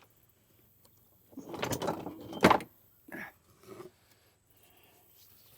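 Outboard flywheel being slid down onto the crankshaft, its magnets grabbing at the ignition coils: metal sliding and scraping for about a second, ending in a sharp clack, then two lighter knocks.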